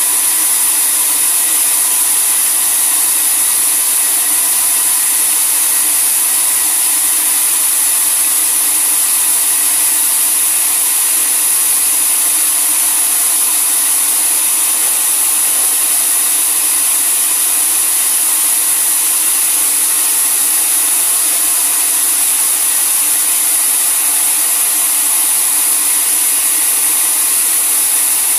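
Sawmill saw and its drive running steadily without cutting: a constant high hiss with faint steady hum tones under it.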